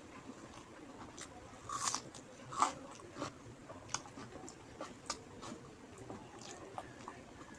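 A person chewing a mouthful of rice and fish curry, with irregular wet mouth clicks and smacks; two louder bites come about two and two and a half seconds in.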